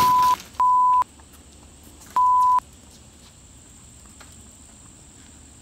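Censor bleeps: a loud, steady single-pitch beep tone, three short bleeps of about half a second each, the first two close together at the start and the third about two seconds in.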